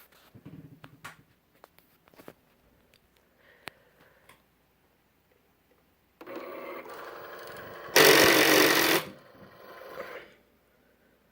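Cricut Explore Air 2 cutting machine's motor running steadily, then breaking into a loud grinding for about a second before dying away; this grinding is the fault noise the machine is making. Faint light clicks come before it.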